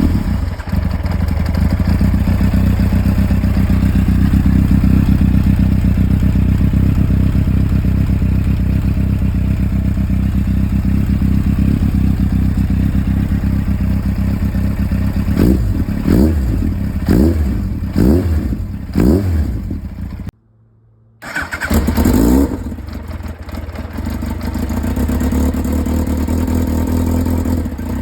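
Motorcycle engine running through an aftermarket Realize universal slip-on silencer with reworked internals: a steady idle, then a series of five or six quick throttle blips. Near the two-thirds mark the sound drops out for about a second, then returns with another rev and settles back to idle.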